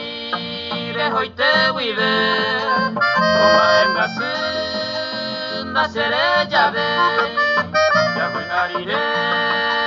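Instrumental break of Paraguayan music: an accordion carries the melody in sustained chords, over plucked harp and bass.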